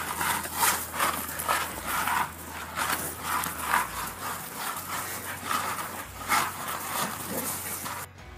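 A dog playing with a soccer ball on gravel: rough bursts of breathing and scuffling, about two a second, stopping suddenly near the end.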